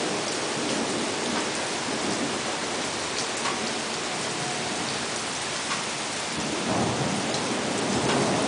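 Heavy thunderstorm rain falling steadily, with a low rumble of thunder swelling in the last couple of seconds.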